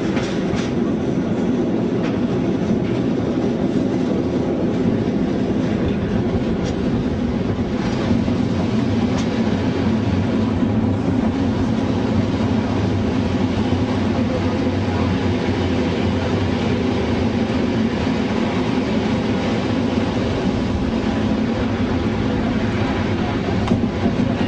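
Class 421 '3-CIG' slam-door electric train running along the track, heard from on board at an open window: a steady rumble of wheels and running gear with occasional clickety-clack over rail joints.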